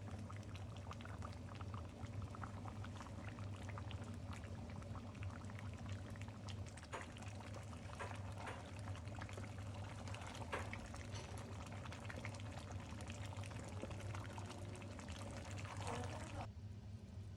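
Pork intestines cooking: a steady, dense crackling bubble of hot liquid, with many fine pops, over a low hum. The crackle cuts off suddenly near the end.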